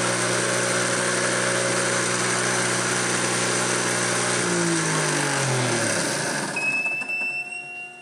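Bench rig of a DC electric drive motor turning a car alternator runs steadily, then is switched off about four seconds in and spins down, its pitch falling until it stops about two seconds later. A faint thin high tone and a low hum are left after it stops.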